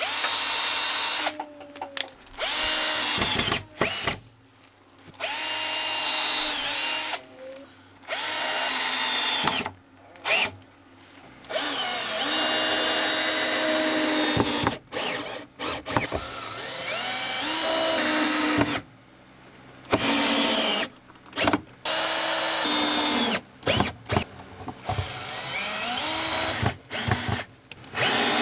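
Power drill driving screws in a series of short runs, its motor speeding up and winding down with each run, with brief pauses between them.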